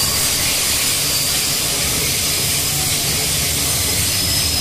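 Loaded freight-train flatcars rolling past on the rails: a steady rushing hiss of steel wheels on track over a low rumble, with thin high squealing tones.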